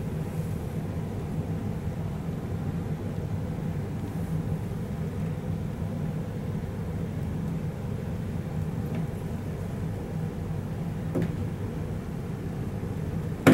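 Steady low rumble of an Airbus A330-300 airliner, with a faint click about eleven seconds in and a sharp knock right at the end.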